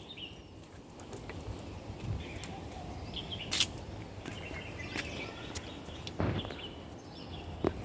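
Outdoor ambience: a steady low background noise with faint, scattered bird chirps and a couple of sharp clicks, one about three and a half seconds in and one near six seconds.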